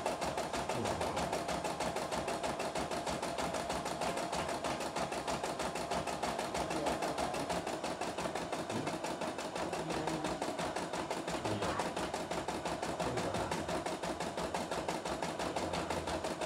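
CNY E960 computerised embroidery machine stitching an embroidery design, its needle working in a fast, even, unbroken rhythm.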